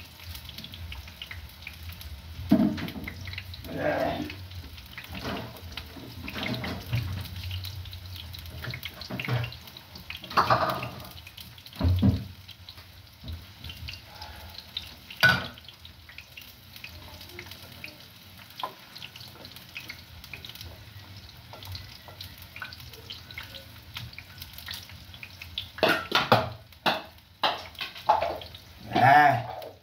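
Liquid and utensil sounds of food being handled: a water-like wash with scattered sharp knocks, and brief voices near the start and end.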